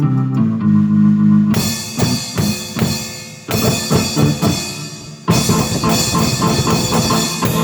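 Drum kit and keyboard played together by one player: a held keyboard chord, then the drums come in about a second and a half in with a cymbal crash and quick snare and bass drum strokes, with fresh crashes twice more, the keyboard chords continuing underneath.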